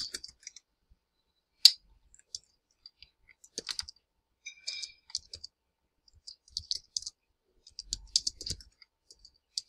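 Computer keyboard typing: irregular key clicks in short runs, with one sharper, louder keystroke about a second and a half in.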